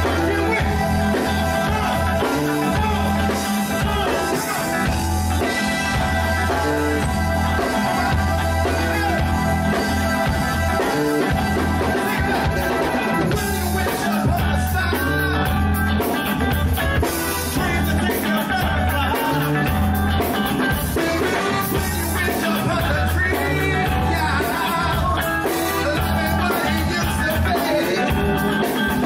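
A live soul band playing, with bass, drums and guitar keeping a steady groove and a voice singing over it in places.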